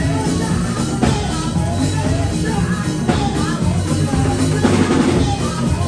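Music with a drum kit playing a steady beat, bass drum and snare, under a melodic line.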